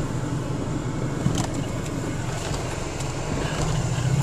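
Car engine running, heard from inside the cabin, as the car pulls away, with a steady low hum that grows louder near the end.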